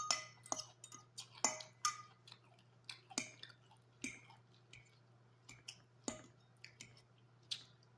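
Close-miked chewing of a crunchy salad: irregular sharp crunches and clicks that thin out in the second half. A couple of short ringing clinks of cutlery on a dish come near the start and around two seconds in.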